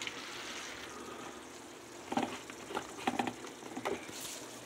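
Ground beef and asparagus sizzling gently in a cast-iron skillet, a faint steady hiss. A handful of light knocks and clicks come about two to four seconds in.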